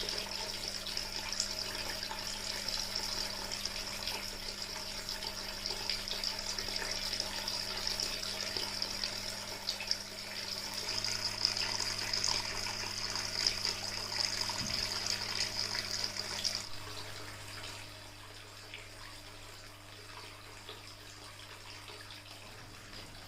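Water trickling and splashing in a small tabletop waterfall fountain, over a low steady hum. About two-thirds of the way through the splashing and part of the hum stop abruptly, leaving a fainter trickle and drip.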